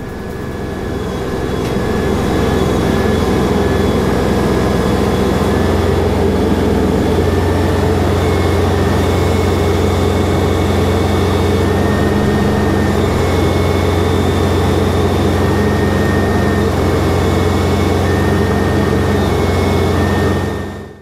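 LS MT342 tractor's three-cylinder diesel engine running loud and steady while the front loader's hydraulics strain against a full IBC water tote on pallet forks, about 2,775 lb, which it cannot lift. The sound builds over the first couple of seconds and cuts off abruptly near the end.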